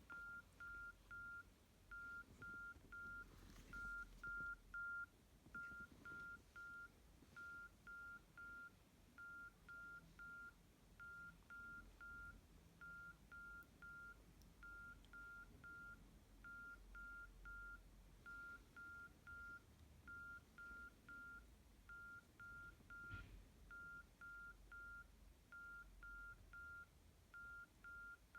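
Nokia 112 mobile phone's speaker beeping faintly: groups of three short beeps at one high pitch, repeating about every two seconds, like a simple alert or beep ringtone. A faint knock comes about three-quarters of the way through.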